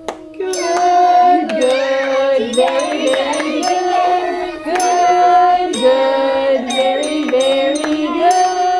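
Music: several voices singing long held notes, with bells struck repeatedly throughout.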